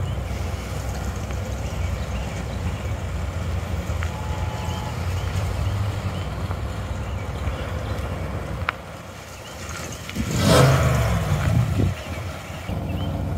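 SUV towing an open car trailer driving slowly up, its engine and tyres giving a steady low rumble. A brief louder rush of noise comes about ten seconds in.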